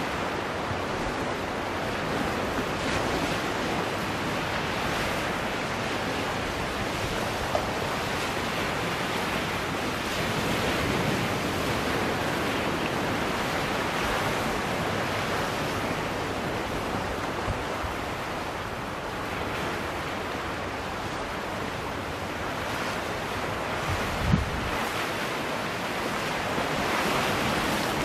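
Sea surf washing steadily among shoreline rocks, gently swelling and easing, with a brief low thump near the end.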